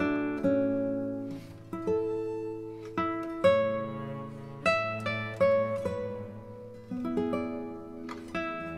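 Background music: a plucked acoustic guitar playing a picked melody, each note struck and then fading.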